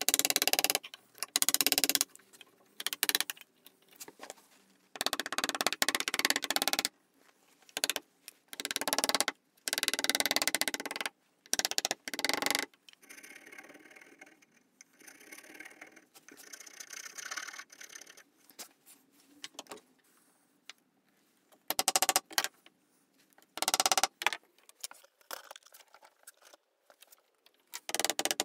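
Files scraping across a wooden saw handle. The first dozen seconds hold loud strokes of about a second each, then comes a long stretch of quieter, finer filing, and a few loud strokes return near the end.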